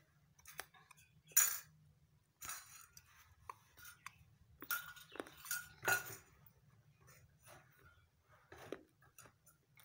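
Steel spoon clinking and scraping in a small steel bowl: irregular clinks, a few of them ringing briefly.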